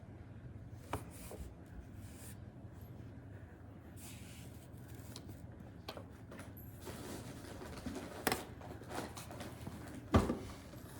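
Craft supplies being handled: scattered light rustles, taps and clicks, busier in the second half, with a sharper knock about ten seconds in.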